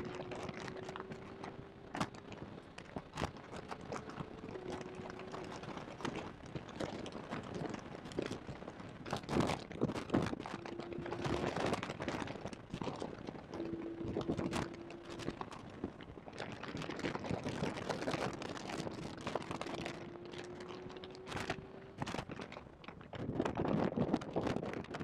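Porsche 991.2 GT3 at speed on track, heard through a badly placed in-car microphone: dense crackling and knocking noise dominates, which the driver puts down to poor mic placement. Under it the 4.0-litre flat-six's tone is faint, climbing slowly in pitch and breaking off and returning several times.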